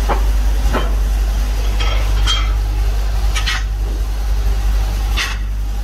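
Iron weights being set down on the steel flasks of sand casting moulds: several metallic clanks, about a second apart, over a steady low hum.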